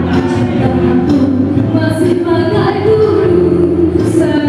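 A woman singing a slow melody into a handheld microphone over accompanying music, holding long notes.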